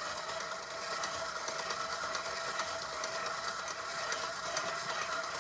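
KitchenAid Artisan stand mixer running on speed 2, its dough hook kneading a stiff bread dough in the steel bowl: a steady motor whine.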